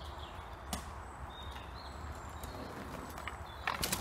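Steady outdoor background with a few faint bird chirps; near the end a mountain bike rolls past close by on a dirt trail, a quick run of clattering clicks from it.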